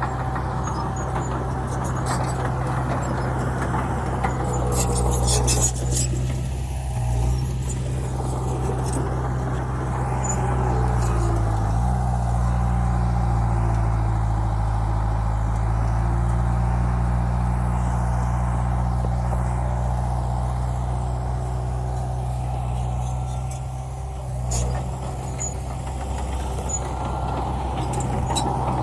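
Heavy diesel earthmoving machine engine running steadily, its pitch dipping briefly a couple of times as it takes load. A short hiss and clatter comes about five seconds in, and another near the end.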